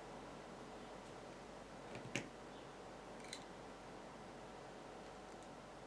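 A few sharp clicks from a car's push-button start system: a weak one and a stronger one about two seconds in, and a fainter one a second later, over a low steady background. No engine catches.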